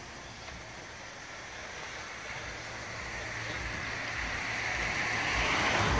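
A road vehicle passing by on the street: its tyre and engine noise swells gradually, peaks near the end, then starts to fall away.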